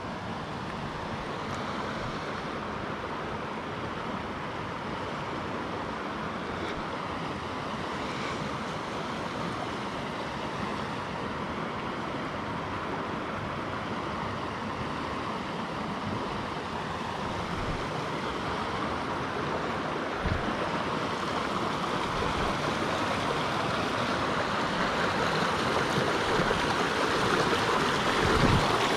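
River rapids rushing over rocks: a steady noise of flowing water that grows louder toward the end as the foaming white water comes nearer. A couple of brief low thumps stand out, one about two-thirds of the way in and one near the end.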